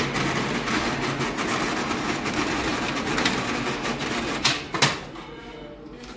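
Toshiba e-Studio 2523AD copier running with a loud, dense mechanical clatter, two sharp clicks about four and a half seconds in, after which it goes quieter. This is the harsh noise that the technician traces to worn gears in one of its units.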